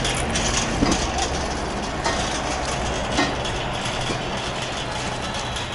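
Engine idling steadily with a low hum, with a few knocks near 1, 2 and 3 seconds in as boxes are loaded into a car's open boot.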